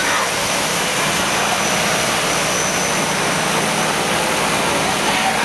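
Steady, loud rushing roar of film-set storm effects: water pouring and spraying from the effects rigs, mixed with an engine-like drone.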